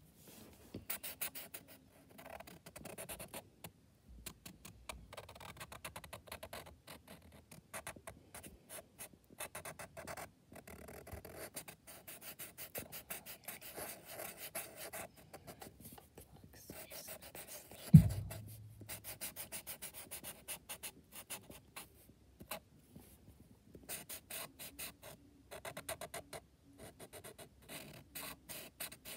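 Marker scribbling on paper in many short, quick strokes, colouring in a solid shape. One low thump about eighteen seconds in.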